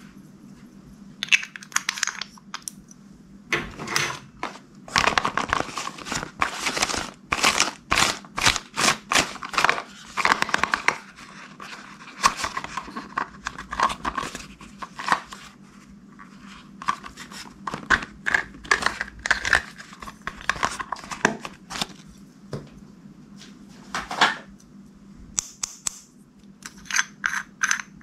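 Slime being squeezed and stretched by hand, making bursts of rapid sticky clicks and crackles that come and go in irregular clusters.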